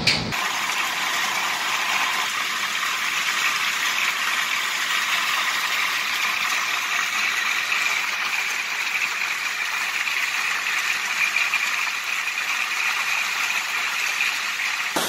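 Hailstones falling heavily, a dense, steady rattle of countless small impacts.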